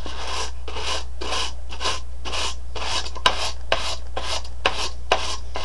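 A stiff-bristled brush scrubbing back and forth across the slotted plastic needle bed of a Bond Ultimate Sweater Machine knitting machine, in quick rasping strokes of about two a second. A few sharp clicks come in the second half. This is the brushing-out stage of cleaning the needle bed.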